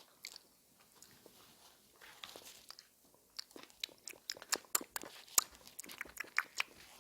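A person chewing food close to the microphone: quick wet mouth clicks and crunches. They are sparse for the first couple of seconds, then come thick and fast from about three and a half seconds in.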